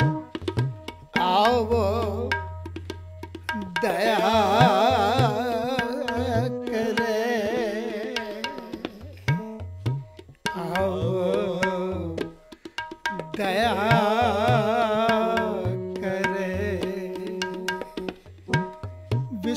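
Sikh kirtan: a man sings a devotional hymn in phrases with a wavering vibrato, over held harmonium and keyboard notes and a steady tabla rhythm with deep bass strokes. The singing breaks off briefly a few times while the tabla and harmonium carry on.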